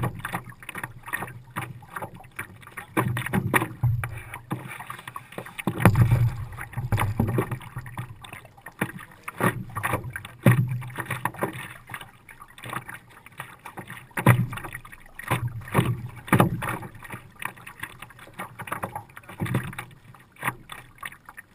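Water splashing and slapping against the nose of a Nidecker stand-up paddleboard as it is paddled along. The sound swells and fades every few seconds with the paddle strokes.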